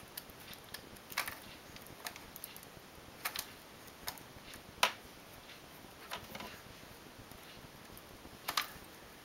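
Irregular light clicks of a latch tool against the metal needles of a knitting machine's needle bed, as stitches are bound off one by one in a chain bind-off.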